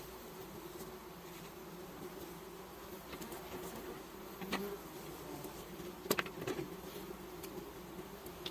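Honeybees buzzing steadily around a hive, a dense hum, with a couple of sharp clicks or knocks about halfway through and again a little later.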